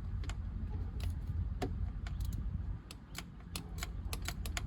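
Irregular sharp metallic clicks and taps of a hand wrench loosening the nut on a car battery terminal clamp, over a steady low hum.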